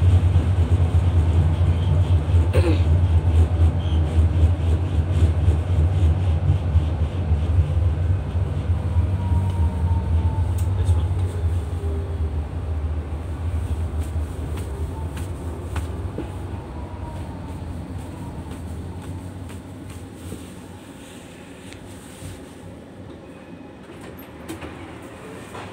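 Low rumble of a tram's wheels and running gear from inside the passenger cabin, fading gradually as the tram slows, with a faint falling whine partway through.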